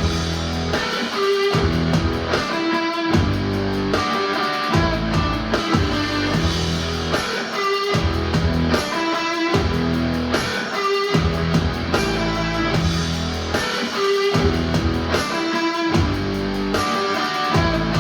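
Music with electric guitar and bass over a steady pulse, played back through a Mission 761i loudspeaker.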